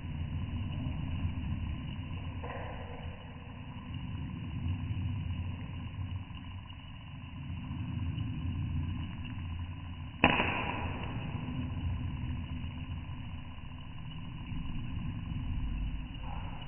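A popcorn kernel popping in a stainless steel pan: one sharp pop about ten seconds in, with a fainter one a couple of seconds in. Under it runs a steady low rumble from the gas burner.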